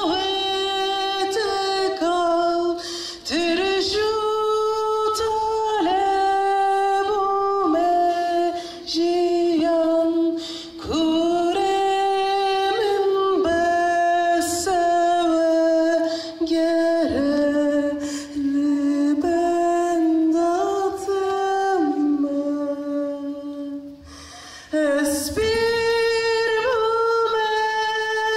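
A single voice singing unaccompanied in long, held notes with short breaks between phrases, dipping briefly quieter about three-quarters of the way through.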